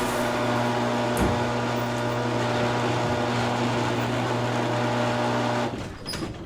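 Motorized garage door closing: a steady motor hum over the noise of the door moving. It dies away near the end with a few clicks as the door stops.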